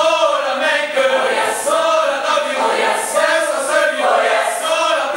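Large mixed choir of teenage voices singing a spiritual in full harmony, in sung phrases with short breaths between them.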